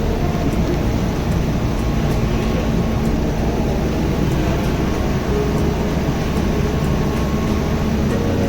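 Steady, loud drone of running machinery, unchanging throughout, heaviest in the low range with a faint steady hum above.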